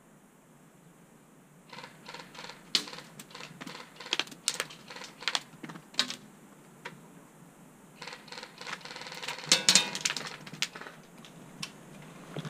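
Airsoft fire: irregular sharp clicks and cracks begin about two seconds in, with a quick dense run of them near ten seconds in.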